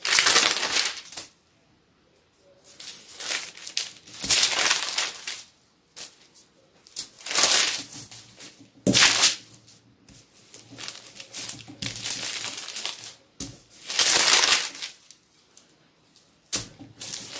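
Bread dough being kneaded by hand on a floured sheet of wax paper, the paper rustling and crinkling with each push and fold. The strokes are irregular, about one every one to two seconds.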